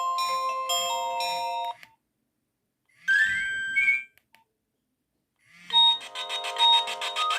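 Nokia 1110i mobile phone playing its built-in ringtones through its small speaker. A beeping melody ends about two seconds in, a short rising run of notes sounds around the three-second mark, and another melody starts near the end.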